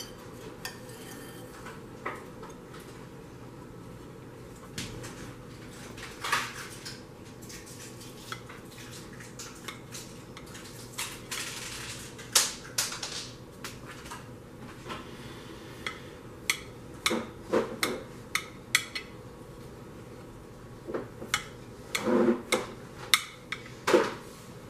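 A knife scraping and clinking against a baking dish and plate: run around the inside edge of the dish, then tapping and knocking on the plate while the cornbread is cut into wedges, with quick clusters of sharp clicks in the second half.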